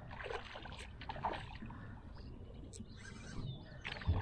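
Small hooked tararira (wolf fish) thrashing at the water's surface, making a few short, irregular splashes.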